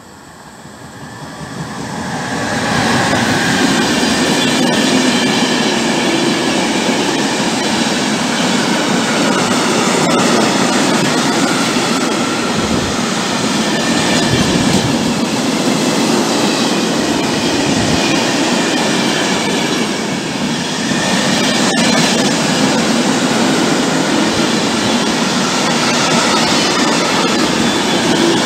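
Freight train of empty van-carrier wagons rolling past close by. The steady rumble of the wheels on the rails builds over the first three seconds, then holds, with a faint high ringing from the wheels above it.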